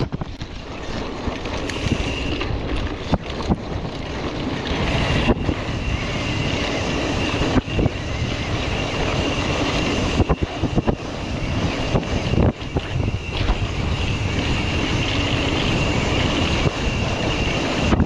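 Wind rushing over the microphone of a mountain bike being ridden fast over rough trail, with frequent knocks and rattles from the bumps and a steady high whine.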